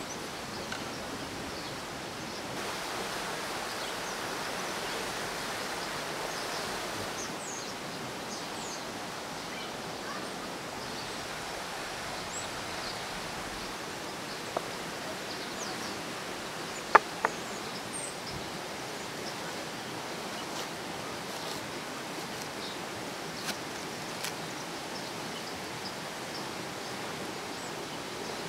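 Steady outdoor forest ambience, an even rushing hiss with faint high chirps. A few sharp knocks of a knife on a wooden cutting board cut through it, the loudest a close pair about halfway through.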